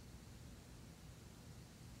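Near silence: faint steady background hiss.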